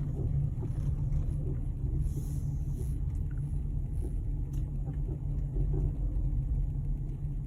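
Steady low rumble of a Toyota Avensis T25 on the move, with a few faint short creaks over it: the squeak that comes when driving and turning the steering wheel.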